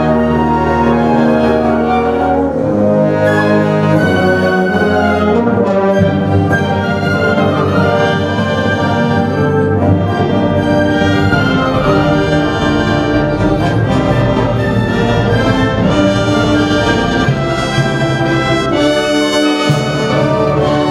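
Orchestral music led by brass, with trumpets and trombones playing held chords at a steady, full volume.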